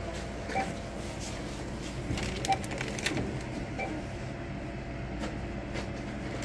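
Store ambience at a checkout line: a steady low hum, three faint short beeps, and a cluster of clicks and rustling about two to three seconds in.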